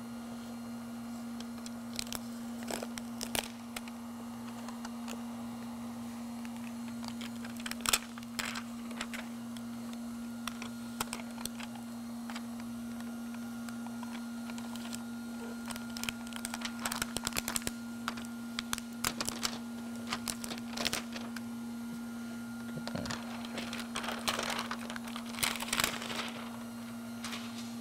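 Clear plastic release film being peeled off the double-sided tape on an EPDM roof flashing and crumpled up by hand, with intermittent crinkling and crackling that thickens in the second half. A steady low hum runs underneath.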